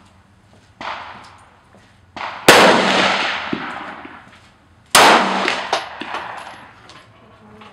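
Two 9mm pistol shots from a Glock 19, about two and a half seconds apart, each ringing out in a long echo under the covered firing line. A fainter bang comes about a second in.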